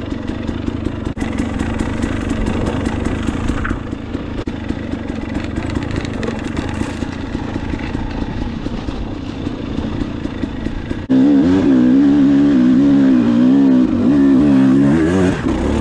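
Dirt bike engine running while riding a rough trail, with knocks and rattles from the bike over the ground. About eleven seconds in the engine gets louder and clearer, its pitch rising and falling as the throttle is worked.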